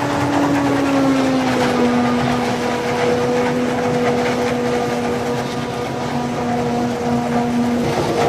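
Claas Jaguar self-propelled forage harvester running at work in maize, a steady loud machine whine over a broad rushing noise. The whine drops slightly in pitch about a second in and then holds steady.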